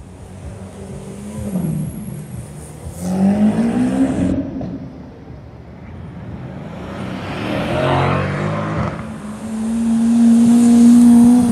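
Lamborghini supercar engines, the V12 of an Aventador among them, revving and accelerating in separate bursts. The pitch climbs and falls about three seconds in and again around eight seconds, and near the end a rev is held steady at a high pitch.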